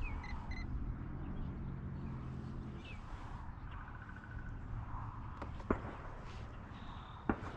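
Birds chirping over a low hum that fades out about three seconds in, with a few sharp clicks later on.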